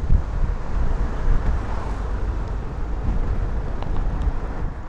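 Car driving slowly on a town street: a steady low rumble of engine and road noise.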